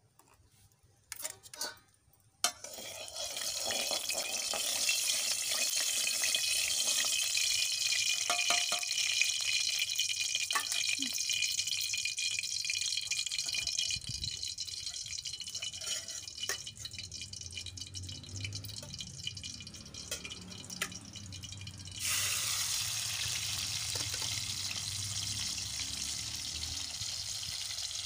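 Fish steaks sizzling as they fry in hot oil in a kadai. The sizzle starts suddenly about two and a half seconds in, after a few light knocks, and then runs as a steady loud hiss.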